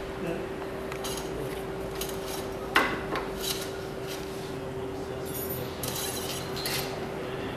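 Hand tools and metal parts clinking and scraping in a car's engine bay, with one sharper knock a little under three seconds in, over a steady hum.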